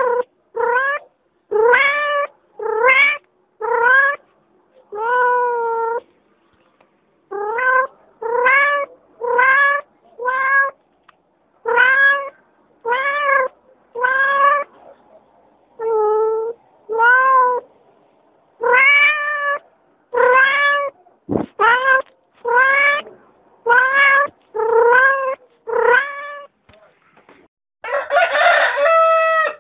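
Cat meowing over and over, about twenty short calls roughly a second apart, each rising and then falling in pitch. Near the end a rooster starts to crow.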